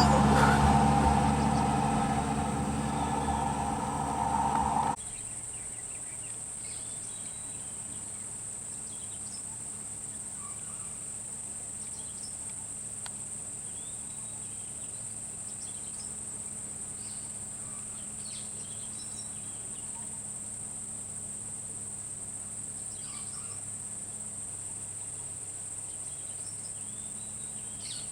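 A vehicle engine runs loudly and fades over the first few seconds, then cuts off suddenly. Afterwards insects keep up a steady high-pitched drone, with faint, scattered chirps.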